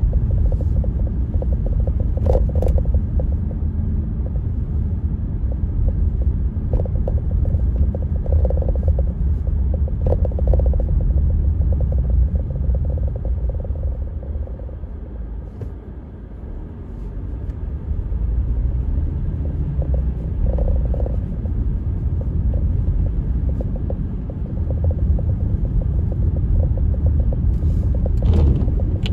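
Blizzard wind buffeting the microphone as a steady low rumble, easing briefly a little past the middle.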